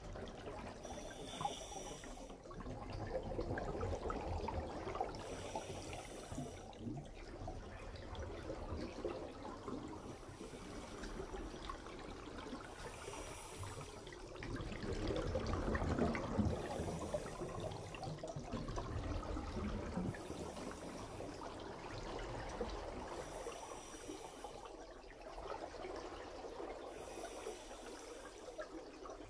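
Scuba diver breathing through a regulator underwater: a short hiss on each inhale every few seconds, followed by a low bubbling exhale.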